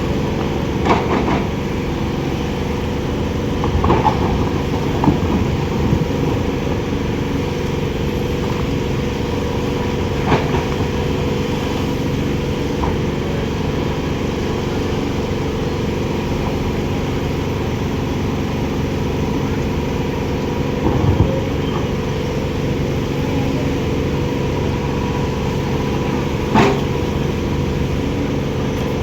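Heavy construction machine's diesel engine running steadily, with a few short knocks of metal on metal spread through it.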